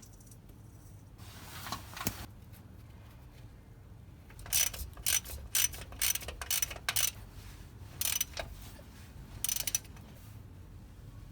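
A hand-operated mechanism clicking and ratcheting in short bursts, typical of tool work on the car. There is a brief scraping rustle about a second in, then several quick runs of sharp clicks in the second half.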